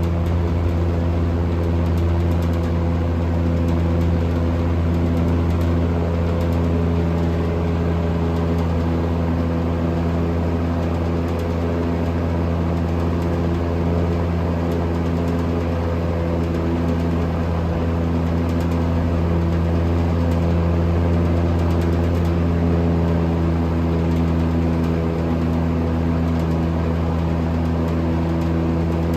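Vintage General Electric W25 five-wing box fan running steadily at full speed: a strong, even motor hum with a steady rush of air. The stiff, unoiled motor has been freed up and has warmed up to full power.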